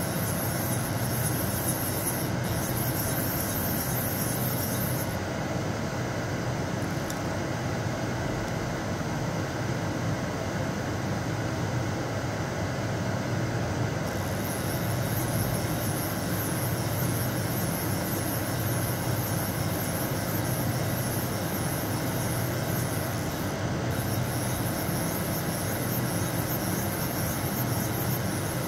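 CNC lathe running with its spindle and chuck turning, a steady machine hum with a high hiss over it that stops for several seconds about a fifth of the way in and comes back around the middle.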